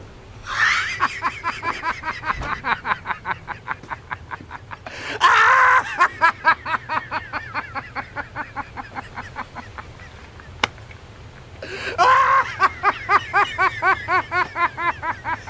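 Long, hearty laughter in three bouts, starting about half a second, five seconds and twelve seconds in; each bout opens loud and runs on in quick rhythmic pulses that gradually fade.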